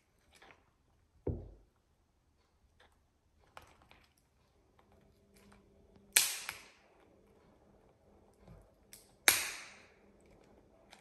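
Blue-and-gold macaw cracking a walnut shell with its beak: two loud, sharp cracks about three seconds apart, with small clicks of beak on shell around them and a dull knock about a second in.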